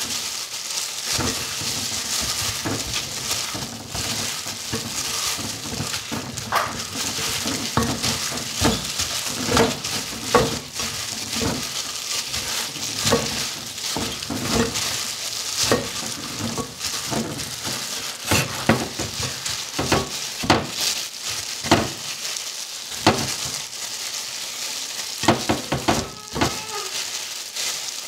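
Gloved hands kneading and rubbing spice marinade into raw chicken legs on a plate: an irregular run of wet squelches and slaps of the meat, with crinkling of the thin plastic gloves.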